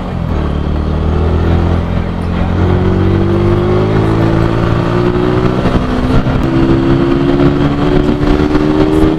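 Motorcycle engine pulling under steady acceleration, its pitch climbing slowly, with brief dips about two-thirds of the way in and near the end as it shifts up a gear, over a constant rushing noise.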